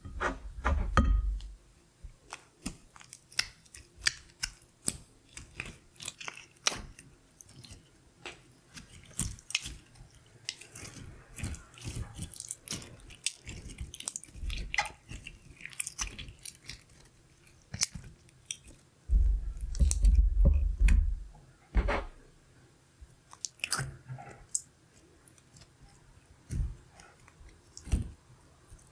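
Glitter slime being squished and pulled by hand, giving a constant run of sticky popping clicks. There are two stretches of low thudding, one at the start and one about two-thirds of the way through.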